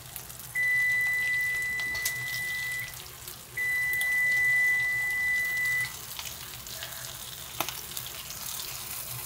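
A steady high electronic beep sounds twice, each about two seconds long, over a soft sizzle of fish frying in oil on a tawa. A single sharp click comes near the end.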